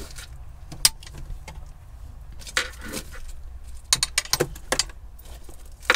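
A small kitchen knife cutting broccoli florets on the worktop, with scattered sharp taps and clicks of the blade on the board and a metal bangle clinking against the worktop, thickest in a cluster about four seconds in.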